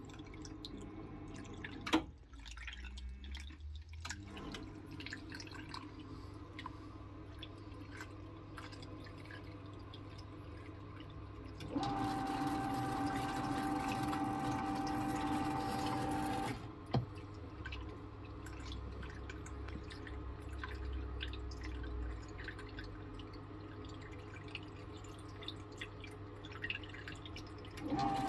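Water dripping and trickling into a Grundfos condensate pump's reservoir as it is test-filled, then the pump kicks in partway through, running with a steady whine for about four and a half seconds before cutting off with a click once the reservoir is pumped down; it starts up again right at the end.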